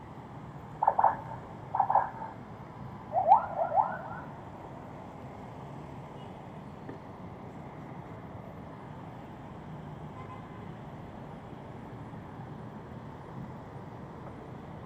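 Steady road traffic with short, loud horn beeps: one about a second in, another a second later, then three in quick succession with a rising pitch.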